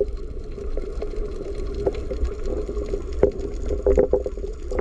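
Underwater sound picked up by a camera below the surface: a steady deep rumble with bubbling and crackling from exhaled scuba bubbles rising, with a few louder bubble bursts around three and four seconds in.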